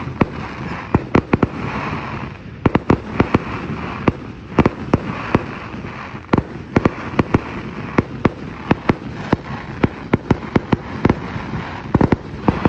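Fireworks going off in an irregular string of sharp bangs and pops, several a second, over a continuous crackle.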